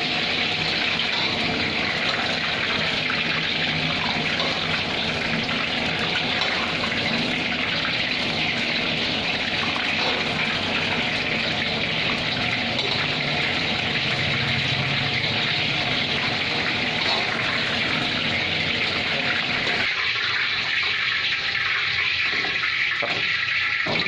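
Marinated chicken pieces deep-frying in hot oil: a steady, even sizzle.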